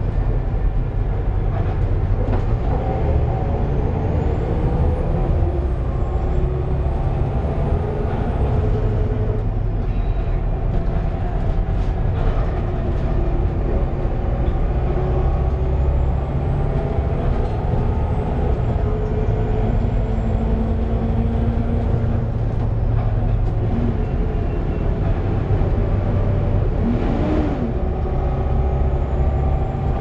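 A Volvo B7TL double-decker bus's diesel engine and drivetrain running steadily under way, heard from the upper deck. Under the low rumble, several whining tones drift up and down in pitch.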